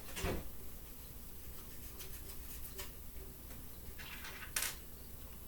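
Faint scraping, rubbing and small clicks of hand assembly work on a laser engraver's frame parts and screws, with a sharper click about four and a half seconds in.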